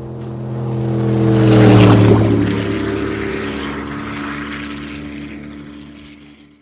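Powerboat's outboard engines passing at speed: the engine note swells, drops in pitch as the boat goes by about two seconds in, then fades away and cuts off at the end.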